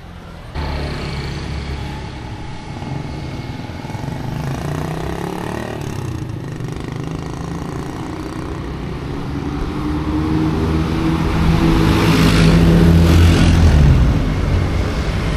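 Motor vehicle engine running on the move, starting abruptly about half a second in, then growing louder and rising in pitch from about ten seconds in, as if accelerating or pulling uphill, before easing near the end.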